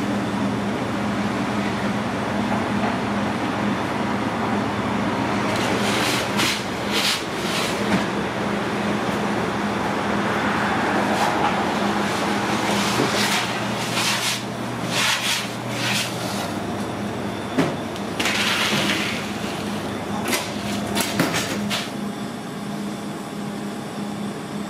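Steady hum of a pizzeria's deck oven and kitchen ventilation, with scattered clatter and knocks of metal baking pans and a wooden peel as trays are slid in and out of the oven.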